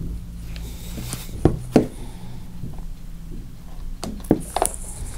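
A few light knocks and clicks as the METABO angle grinder's gear head is set back onto its housing: a pair about a second and a half in and another pair a little after four seconds.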